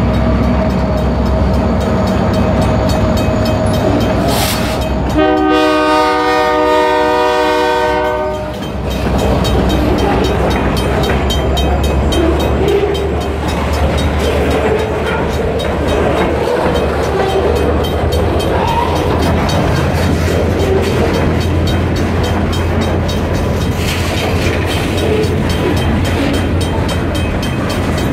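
Freight cars rolling past with a steady low rumble and clatter of wheels on rail. About five seconds in, a diesel locomotive horn sounds one held chord for about three seconds.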